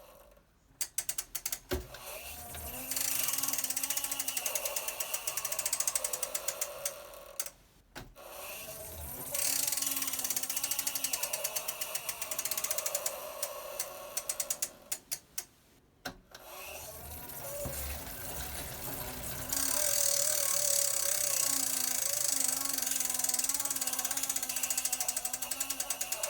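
Tacx Flux direct-drive smart trainer running, with a wavering hum and a fast fine ticking over it: the noise its owner reports as a fault. Twice the hum dies away into a run of slowing ratchet clicks as the freehub freewheels, and then picks up again.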